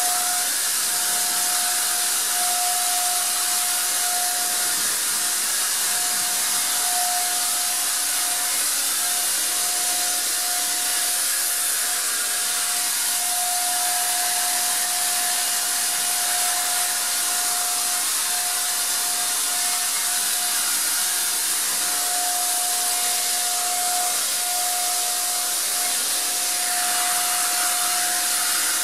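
Wagner 150 electric paint sprayer running without a break while spraying screen paint: a steady motor whine under a loud hiss of air and paint.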